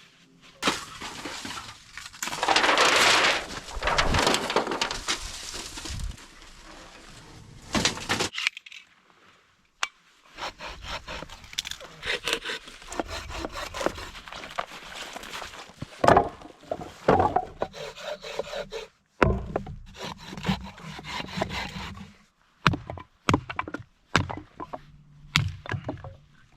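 Firewood being cut and split for camp: sawing, wood cracking and scraping, with sharp knocking strokes, in several separate stretches broken by abrupt short silences.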